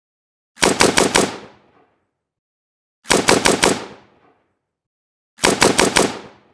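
AK-47 assault rifle firing three short bursts of automatic fire, about two and a half seconds apart. Each burst is four or five rapid shots, with a short echoing tail after it.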